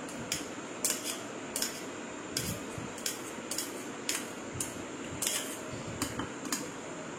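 A spoon clinking against a bowl about a dozen times, roughly twice a second, while sweet corn kernels are spooned into it.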